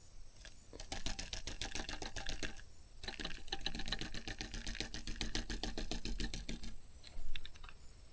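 Fishing reel being cranked, clicking rapidly and evenly in two runs with a short pause between them, as line is wound in after a bass strikes the lure.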